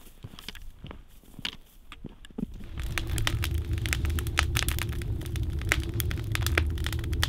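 Wood fire crackling in a wood stove, with a steady low rumble that comes in about two and a half seconds in. Only faint scattered ticks before it.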